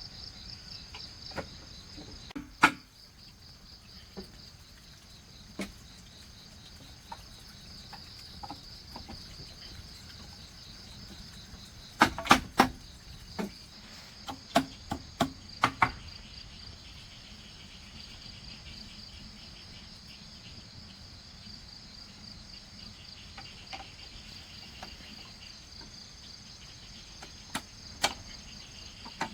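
Insects chirping in a steady, fast pulsing drone, with scattered sharp knocks over it: a single one early, a quick run of about eight in the middle, and two more near the end.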